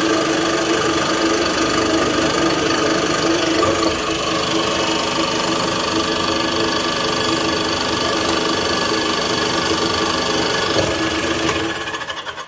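A machine motor running with a steady pitched hum, then winding down and stopping near the end, its beats slowing as it stops.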